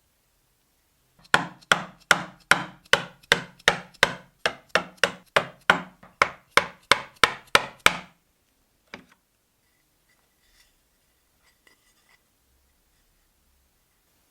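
A hand tool working wood in quick, even strokes, about two and a half a second for some seven seconds, then a single further stroke about a second later.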